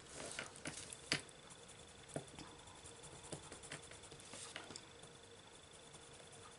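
Faint scratching of a coloured pencil shading on paper, blending one blue into another in short, uneven strokes.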